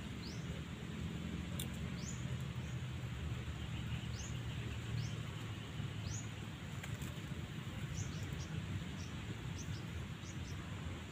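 A small bird chirping again and again: short, high notes that rise quickly, about one a second and faster near the end, over a steady low rumble.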